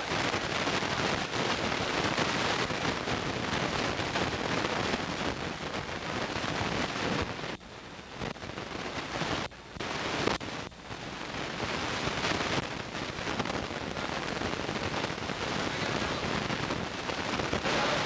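Steady rushing noise on the camcorder's microphone, with no clear voices in it. It drops out briefly three times around the middle, where the recording is cut.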